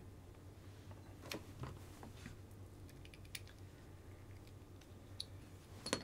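Faint, scattered clicks of small parts being handled and fitted together: the pins and retaining nuts of an RC excavator's quick-release coupler being lined up and dropped into place.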